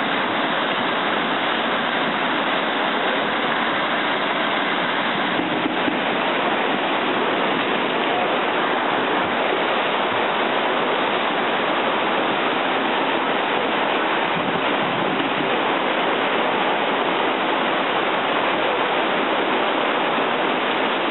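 Tsunami floodwater rushing, a steady, unbroken wash of noise.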